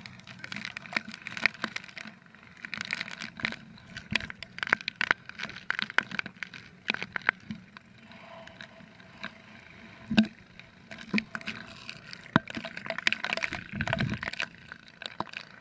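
Water spray and splashes striking an action camera on a banana boat towed at speed through a jet ski's wake: an irregular run of sharp clicks and knocks over a rushing background, with the loudest knock about ten seconds in.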